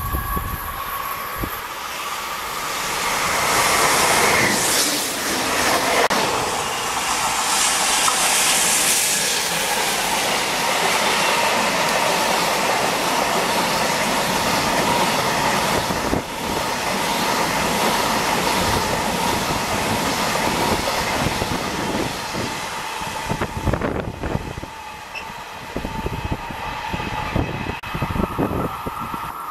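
An electric freight train of empty intermodal flat wagons passes close by at speed: a loud rush as the head goes by, then a steady rumble of steel wheels on rail with clickety-clack. The clacks thin out into separate strokes near the end as the last wagons pass.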